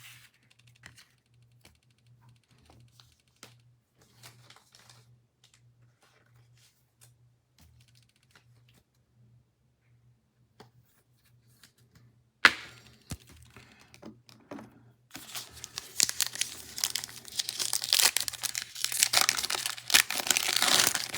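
Faint scattered clicks of trading cards being handled. About twelve seconds in comes a sharp rip, followed by loud crinkling and tearing as the wrapper of a 2021 Illusions football card pack is torn open.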